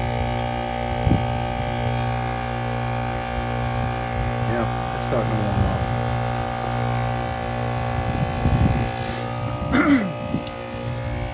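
Heat pump's Copeland scroll compressor running with a steady hum, the unit forced into cooling mode with the condenser fan unplugged so that the iced-up outdoor coil thaws. There is a short knock about a second in.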